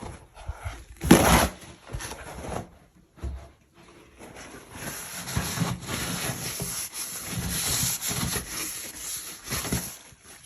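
Paper towels rustling and rubbing as a dirty sink area is wiped down, with one sharp loud rip about a second in and a long stretch of steady rubbing in the second half.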